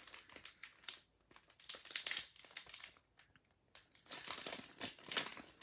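Foil wrapper of a 2020 Bowman Draft baseball card pack crinkling as it is pulled open by hand, in irregular crackles with a pause of about a second in the middle.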